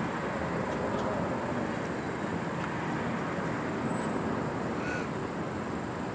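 Steady street traffic noise: the even rumble of vehicles running on a city road.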